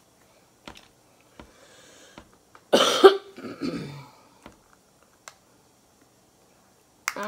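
A single loud cough about three seconds in, trailing into a lower throaty rasp. Around it are small, faint clicks of snow crab shell being picked apart and the meat sucked out.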